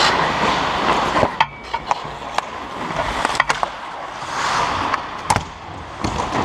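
Ice hockey skates scraping across the ice close to the goal, then a run of sharp clacks of sticks and puck between about one and five and a half seconds in.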